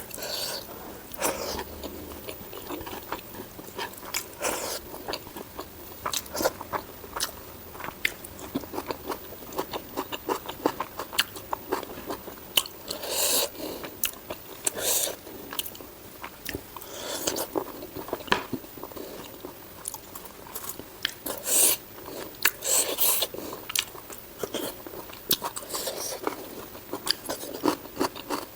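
Close-up mouth sounds of someone eating spicy pork with rice: wet chewing and smacking with frequent small clicks and crunches, louder bites every second or two.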